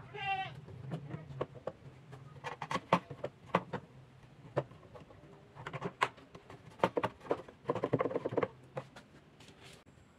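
Light wooden knocks and clicks as plywood jig parts and wooden blocks are handled and set in place on a plywood table-saw top, and a toggle clamp is worked. There is a short falling chirp at the start and a quick rattle of ticks near the end, over a low steady hum.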